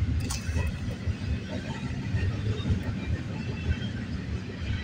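Double-stack intermodal freight train rolling past at a level crossing: a steady low rumble of wheels on rail, muffled inside a car.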